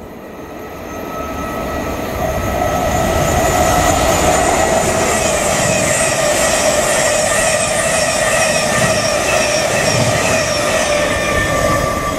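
A Thameslink Class 700 electric multiple unit passing through without stopping: a rush of wheels on rail that swells over the first few seconds, holds steady with thin high-pitched tones over it, and starts to fade near the end as the train clears.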